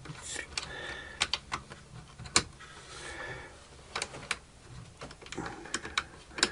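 Small metal washers and nuts clicking and scraping against a bolt and a screwdriver tip as they are worked into place by hand. Irregular sharp clicks come a few times a second, with a couple of brief scrapes.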